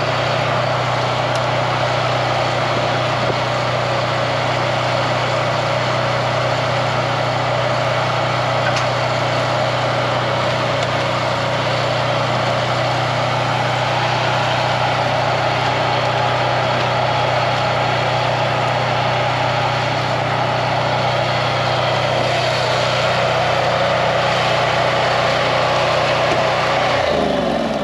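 Hot-water decontamination unit running steadily, a constant engine-like hum over rushing water, as hot water is flushed through the outboard motor. It shuts off near the end.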